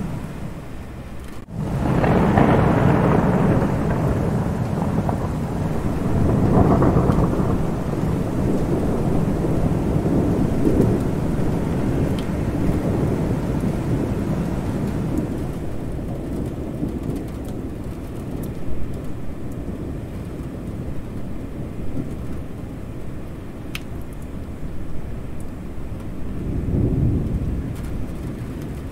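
Thunderstorm: steady rain with long, low rolls of thunder. The rumbling swells about two, seven and eleven seconds in and again near the end. The sound cuts out for an instant about a second and a half in.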